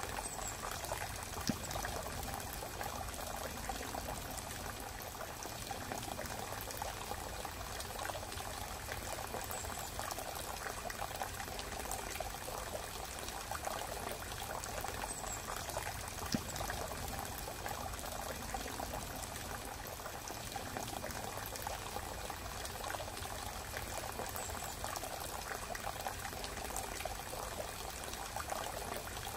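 Steady rushing noise like running water, with a couple of faint clicks.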